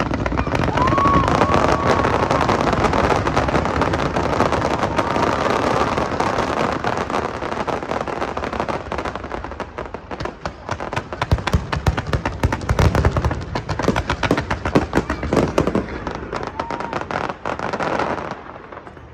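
Fireworks going off in a dense, continuous barrage of bangs and rapid crackling. The crackle is thickest in the second half and cuts off about a second before the end.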